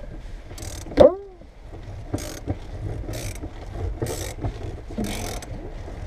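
Wire-out glass-removal tool (Viper) ratcheting its winder, drawing the cutting line through the urethane bead of a car's back glass in rasping strokes about once a second. About a second in, a loud sharp click rings briefly.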